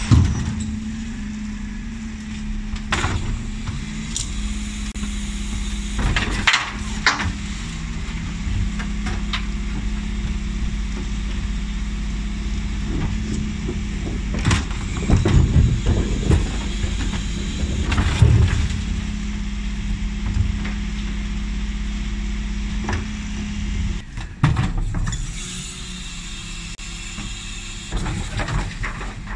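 Refuse truck idling with a steady low hum while its Terberg OmniDEL rear bin lift tips plastic wheelie bins, with repeated knocks and clatters of bins against the lift and bin lids slamming. The hum stops about 24 seconds in, where the sound changes abruptly.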